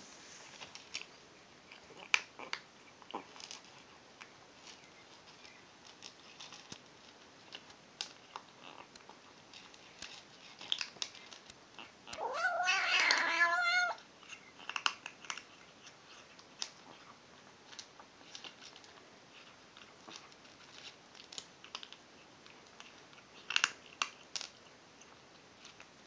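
A kitten eating dry kibble, with short crunching clicks throughout; about halfway through it lets out one long, wavering cry of nearly two seconds, the odd noise it makes while eating.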